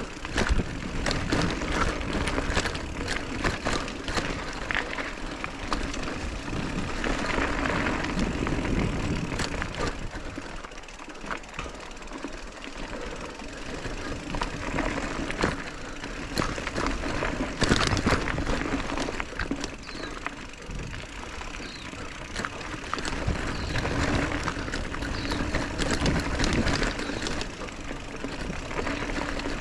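Mountain bike riding down a dirt trail: tyres running over dirt and leaves, with frequent rattles and clicks from the bike over bumps and a deep wind rumble on the microphone. It eases off briefly about ten seconds in.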